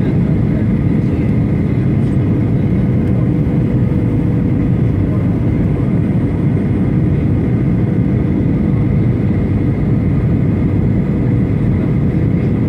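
Steady cabin noise inside a Boeing 737-800 on approach: the low rumble of its CFM56 turbofan engines and rushing airflow, with a faint steady hum running through it.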